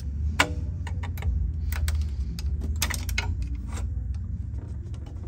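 Sharp metallic clicks and taps as a flathead screwdriver pops the throttle-cable linkage off a golf-cart carburetor and fingers handle the small parts, with the loudest click about half a second in. A steady low hum runs underneath.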